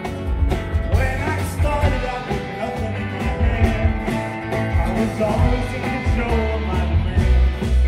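Live rock band playing a song: acoustic guitar strummed, electric bass and drum kit keeping a steady beat, with a man singing the lead vocal.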